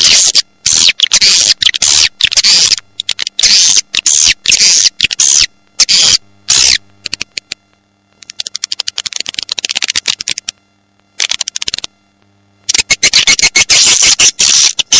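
Swiftlet lure recording ('suara tarik') of edible-nest swiftlets: loud bursts of shrill twittering chirps separated by short gaps. A stretch of rapid clicking comes about two-thirds of the way through. It is the call played from swiftlet houses to draw the birds in to roost in the evening.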